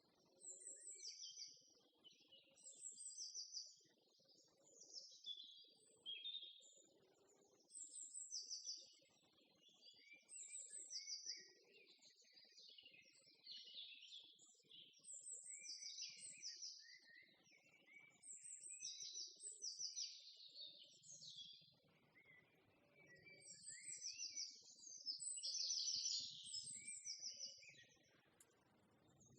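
Songbirds chirping and singing in short, high, repeated phrases, one every second or two, fairly faint.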